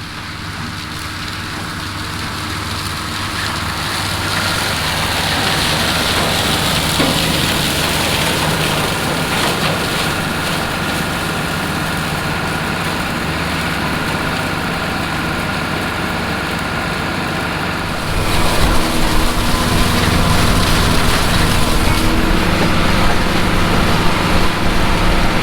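Farm tractor engine running steadily with a continuous mechanical drone; it grows louder over the first few seconds, then steps up louder and deeper about 18 seconds in.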